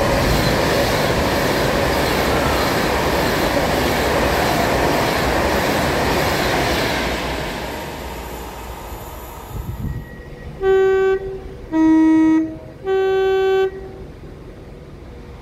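Class 390 Pendolino electric train passing through the station without stopping: a loud, steady rush of wheel and air noise that fades away after about seven seconds. Then a Class 195 diesel unit sounds its horn three times, high, low, high, as tones given by the driver.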